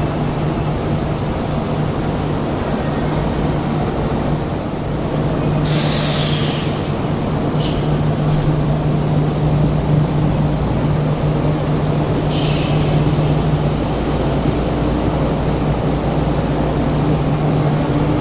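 Odakyu 1000 series electric train standing at the platform with a steady low hum, letting off two loud hisses of air from its brakes, about six and about twelve seconds in. Near the end a rising whine starts from its traction motors as it begins to pull away.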